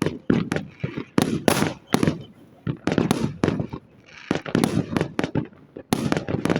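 Firecrackers and fireworks going off in rapid, irregular bangs, several a second, with short lulls about two and four seconds in.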